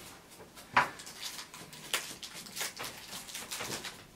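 Small hard plastic parts being handled and fitted onto a figure's stand: a sharp click about a second in, another near two seconds, then a run of lighter clicks and light rustling.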